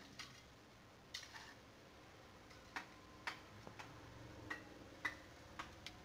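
Faint, irregular sharp clicks and taps, about eight of them, from an Alexandrine parakeet moving about its wire cage.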